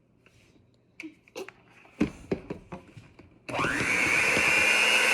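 A few knocks and clicks of handling, then an electric kitchen mixer switches on about three and a half seconds in and runs at a steady high whine, mixing cupcake batter.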